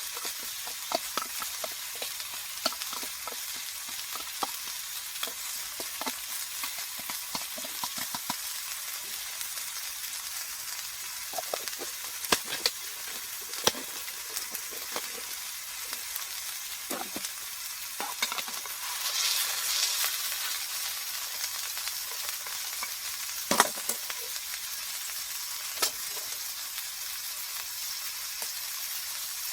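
Heavy rain falling on a lavvo tent's fabric: a steady hiss with scattered sharp drop ticks, swelling briefly about two-thirds of the way through.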